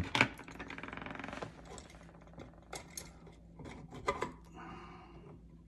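Hand work on a wall switch's wiring as a wire is taken off its terminal. It opens with a sharp click and a short rattle, then scattered small clicks of metal and wire being handled.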